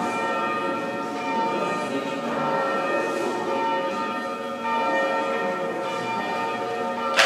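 Bells ringing, with many overlapping tones that swell and fade together without a break.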